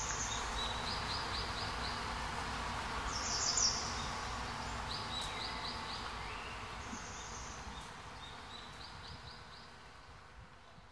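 Outdoor meadow ambience: short, high chirping trills from birds or insects repeating every second or two over a steady hiss, fading down toward the end.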